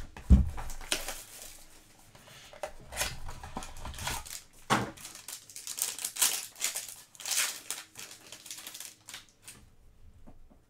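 Hands opening a cardboard trading-card box and tearing open the foil pack inside: crinkling, rustling foil and small clicks, with a thump right at the start.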